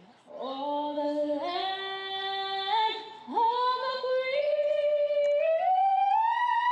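A woman's solo voice singing, with little or no accompaniment: a phrase of held notes stepping upward, a short breath about three seconds in, then one long high note that slowly climbs in pitch.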